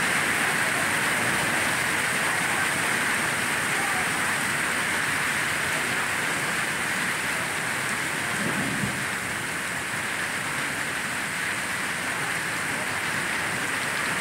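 Hail pelting the surface of a lake and the gravel shore, a steady dense hiss. A brief low rumble about eight and a half seconds in.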